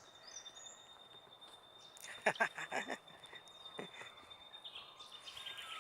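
Birds calling outdoors: short chirps, a brief cluster of calls partway through and a quick trill near the end, over a steady thin high tone.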